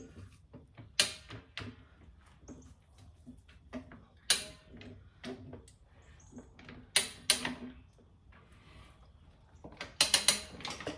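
Scattered sharp clicks and knocks of a manual motorcycle tire changer and its tools working a tire bead onto the wheel rim, with a quick run of clacks near the end.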